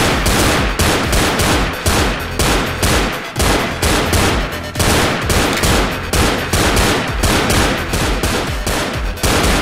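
Rapid gunfire, shot after shot in quick, uneven succession, over loud background music.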